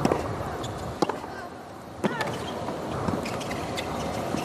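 Low stadium crowd murmur with a few sharp taps about a second apart: a tennis ball being bounced on the hard court before a serve.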